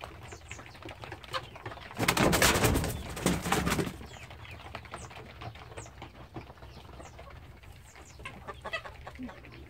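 A flock of chickens in a coop clucking softly, with faint, short, high chirps now and then. About two seconds in, a loud rustling scuffle lasts for about two seconds.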